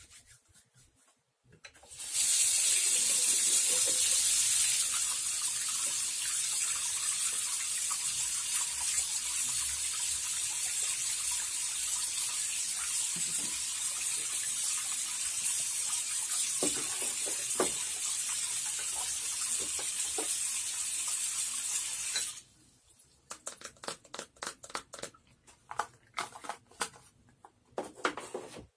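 Water tap running steadily into a sink for about twenty seconds, with a few soft knocks under it; it stops suddenly and is followed by scattered small clicks and knocks.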